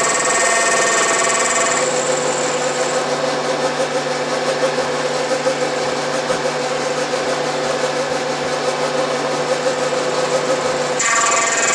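Vertical milling machine taking a cut with a T-slot cutter in metal, a steady machining whine. High ringing tones from the cut drop away about two seconds in, leaving a lower, steadier hum, and come back near the end.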